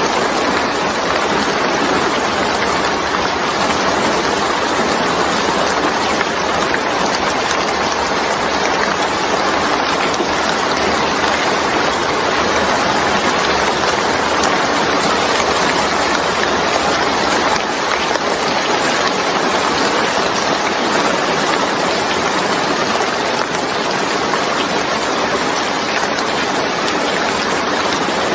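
Steady heavy rainfall, an even hiss with no distinct drops or thunder.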